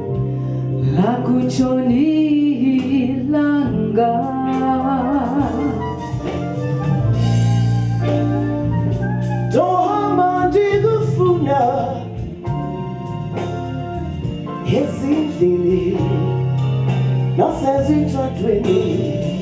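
Live South African song: a woman singing a wavering, sliding vocal line into a microphone over electric guitar and steady low accompaniment.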